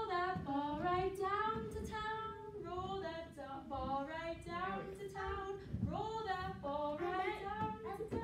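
A woman and young children singing a simple song together, unaccompanied, in sustained phrases.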